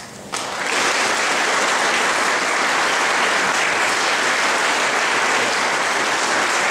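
Audience applauding, the clapping starting suddenly about half a second in and then holding steady.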